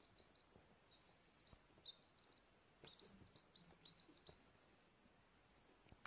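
A chick peeping faintly in quick runs of short, high peeps, about four runs in the first four seconds, the last run the longest.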